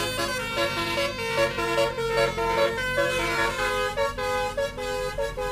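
Multi-tone basuri musical air horn, the Indonesian bus 'telolet' horn, playing a quick tune of stepped notes, each held a few tenths of a second, over a steady low hum.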